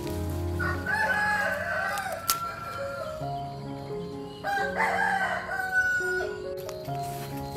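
A rooster crowing twice, each crow wavering and about a second and a half long, over soft background music with slow held notes.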